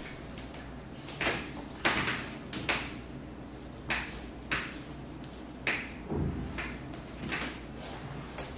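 Black nitrile-gloved hands rubbing and sliding over skin and clothing during a side-lying massage: about ten short swishes, irregularly spaced roughly once a second, over a steady low hum.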